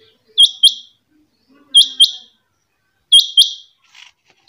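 Caged quail calling: three loud double-note calls, each two sharp whistled notes in quick succession, repeated a little over a second apart.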